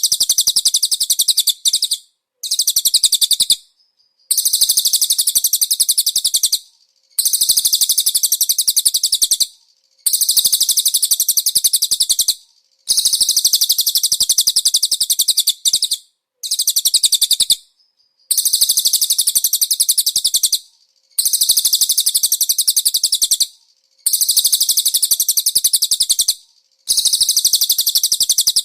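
Cililin bird singing: very rapid, high-pitched trilled phrases of about two to two and a half seconds each, repeated over and over with short pauses between them.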